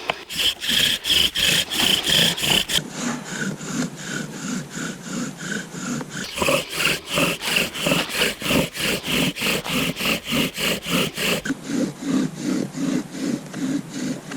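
Bow drill in use: the Douglas fir spindle spins back and forth in the fire board, giving rhythmic rubbing, squeaking strokes at about three a second. The pitch of the squeak shifts a few times.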